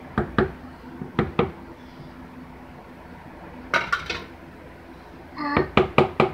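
Spatula knocking and scraping against a stainless steel mixing bowl while scooping thick cake batter: two quick clinks near the start, two more about a second in, then a short cluster about four seconds in and another near the end.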